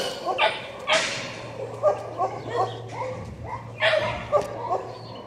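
Dogs barking and yipping, a run of short, repeated calls, with two louder barks about a second in and again near the end.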